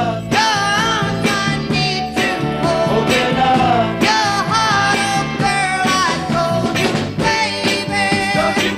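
Background music: a song with singing over a steady beat with bass and drums.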